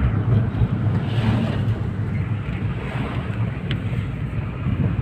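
Steady engine hum and road noise of a moving car, heard from inside, with wind buffeting the microphone.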